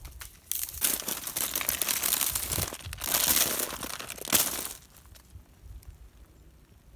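Ice glaze from freezing rain crackling and crunching as it is broken and crushed, for about four and a half seconds, with a loud crack near the end of that stretch. Then it stops, leaving only faint light ticking.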